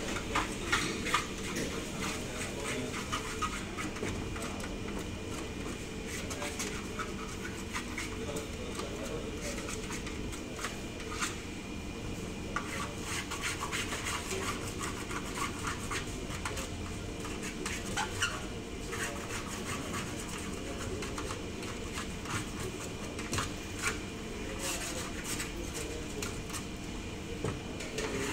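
Metal scraper scraping and tapping in a metal baking tray, rasping through baked cake crumbs in short, irregular strokes, over a steady background hum.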